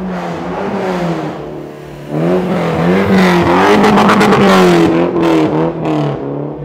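Car engine being revved repeatedly, its pitch rising and falling with each blip and getting much louder from about two seconds in. The exhaust gives no pops or bangs.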